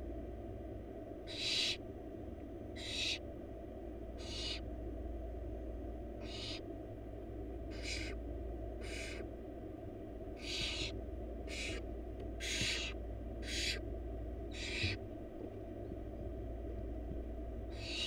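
Barn owl nestlings giving repeated hissing begging screeches, about eleven short rasping calls roughly a second apart, as they are fed. A steady low hum runs underneath.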